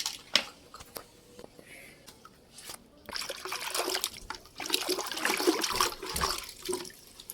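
Water splashing and sloshing as a plastic toy is washed by hand in water, starting about three seconds in, after a couple of sharp clicks near the start.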